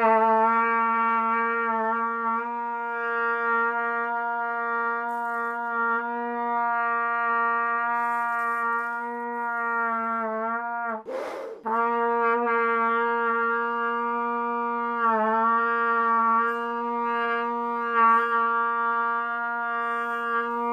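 Trumpet holding two long, steady tones on the same low note, with a quick breath between them about eleven seconds in. They are played as a cheek exercise, the cheeks puffed at first and gradually closed while the note is held.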